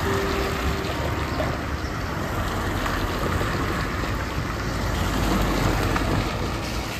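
Small cars driving past on a rain-wet road: a steady hiss of tyres on wet asphalt with engine noise, swelling a little as a car passes close near the end.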